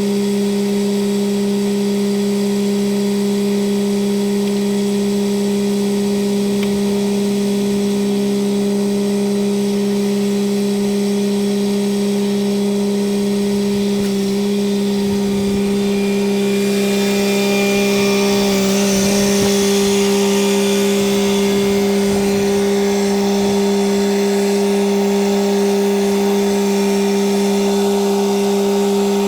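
An engine running steadily at one unchanging speed, with a burst of added rushing noise a little past the middle.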